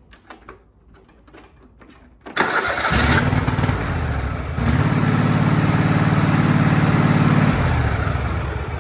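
Craftsman lawn tractor's Kohler engine cranking and catching about two seconds in, after a few light clanks of tools. It runs, picks up speed, holds steady, then drops back near the end. It is starting normally now that the blown fuse behind the dead, no-click key has been replaced with the correct 20 amp fuse.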